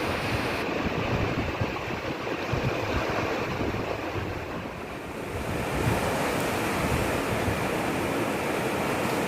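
Sea surf washing onto a beach, a continuous rush of breaking waves with wind buffeting the microphone. The surf eases slightly about four to five seconds in, then a wave swells up again about a second later.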